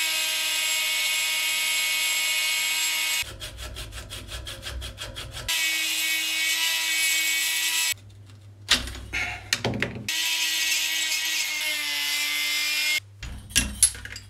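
Flexible-shaft rotary tool running at high speed with a steady whine, grinding at a small aluminium hose coupling. The whine stops and starts several times: one break is a couple of seconds of rapid rattling, and the others are scrapes and sharp clicks of a screwdriver working the part in the vise.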